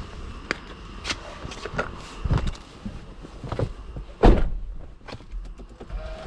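A string of irregular knocks and clunks, the loudest one about four seconds in, over a low rumble.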